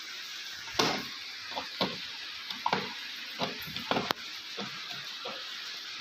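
Short, irregular scrapes of a screwdriver working at a tight, rusted screw on a washing machine's wash motor mount inside its plastic base, with one sharp click about four seconds in.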